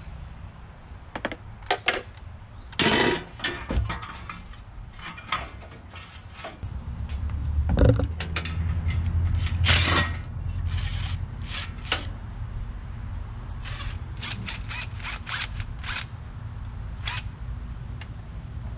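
Allis-Chalmers 5015 compact tractor's small diesel engine running with a steady low hum that grows louder for a few seconds in the middle. Sharp clicks and metal knocks of tools being handled sound over it.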